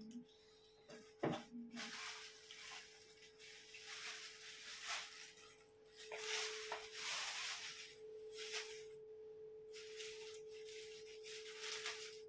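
Irregular rustling and crinkling of plastic shopping packaging being handled, in bursts that are busiest near the middle. A steady faint tone hums underneath throughout.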